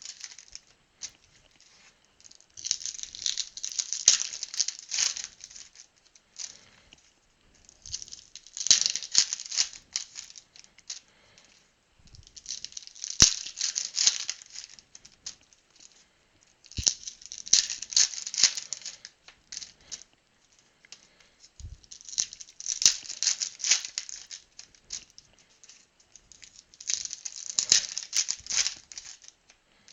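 Trading card packs and cards being handled: repeated bursts of crinkling and rustling from foil pack wrappers and cards, about every four to five seconds, with a few light clicks in between.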